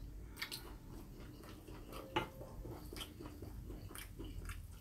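Soft chewing with a few light clicks and scrapes of a metal spoon against a ceramic bowl as bean sprout rice is stirred and scooped.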